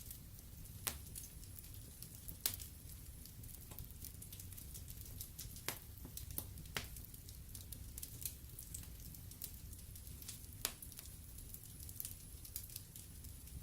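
Wood fire burning in a fireplace: a low rumble and hiss of the flames with irregular sharp crackles and pops from the burning logs.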